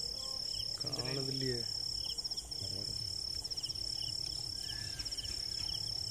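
Insects chirping: a steady high trill with short pulsed chirps repeating about once a second. A brief voice cuts in about a second in.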